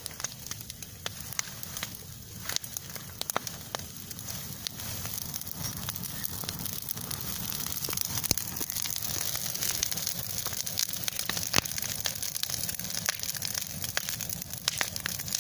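Campfire of damp wood crackling, with many sharp pops over a steady hiss.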